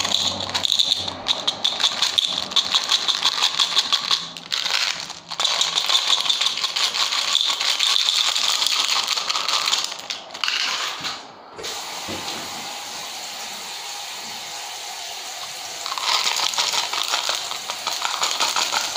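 Tic Tac mints rattling and clicking in quick succession as they are shaken out of their plastic box into a plastic pill bottle. The rattling stops for a few seconds past the middle and resumes near the end.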